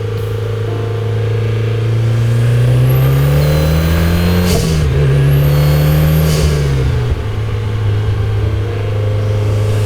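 Mitsubishi Lancer Evolution X's turbocharged 2.0-litre four-cylinder engine running steadily, then revving up. The pitch climbs, dips sharply once about four and a half seconds in, climbs again, and falls back to a steady run near seven seconds, with a faint high whine rising alongside each climb.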